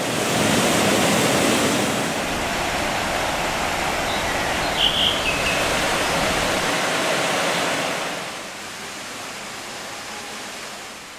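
Rushing water of a waterfall: a steady noise that becomes noticeably quieter about eight seconds in.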